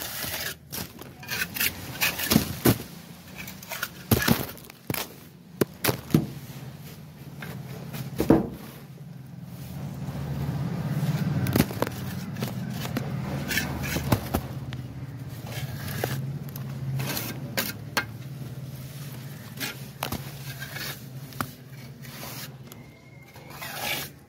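Cement plaster being scraped and cut into a groove with a mason's hand tool drawn along a wooden straightedge: irregular sharp scrapes and knocks, thickest in the first eight seconds or so. A low steady hum runs under the second half.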